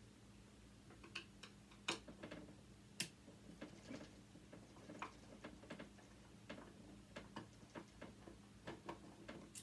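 Faint, irregular small clicks and ticks of a screwdriver and metal parts being worked during disassembly, with a couple of sharper clicks about two and three seconds in.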